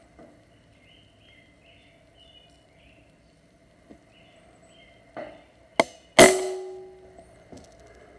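Benjamin Maximus PCP air rifle firing a single shot about six seconds in: a sharp crack with a short ringing tail, just after a smaller click. Faint bird chirps sound before the shot.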